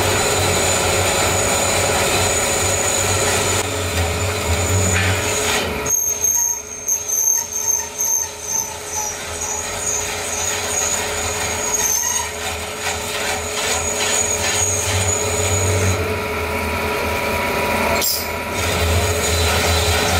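Metal lathe spinning a steel truck rim while a cutting tool works its surface: a steady motor hum with scraping, and a thin high whine through the middle part.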